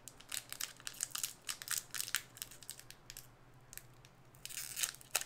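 Small snack wrapper crinkling and tearing open in the hands: a dense run of sharp crackles for about two seconds, a quieter pause, then a longer crackle near the end that finishes with a sharp snap.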